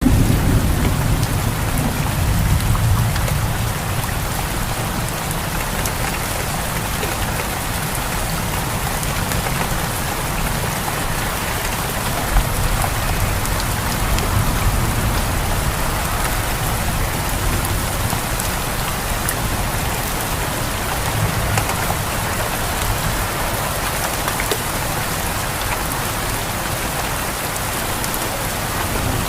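Steady heavy rain falling on surfaces, an even hiss of many drops, with a low rumble in the first few seconds and a single sharp tap about twelve seconds in.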